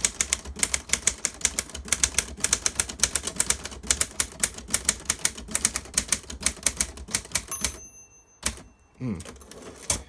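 Fairbanks Ward Deluxe Portable, a rebadged Consul 1511 manual typewriter, typed on at speed: a quick, even run of typebar strikes on a platen backed with two sheets of paper. Near the end the typing stops, the end-of-line bell rings briefly, and a couple of single strokes follow.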